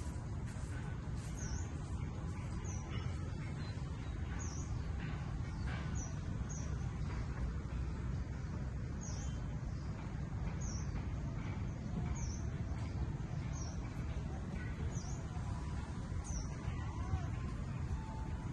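A small bird repeating a short, high chirp that dips and rises again, every second or two, over a steady low rumble.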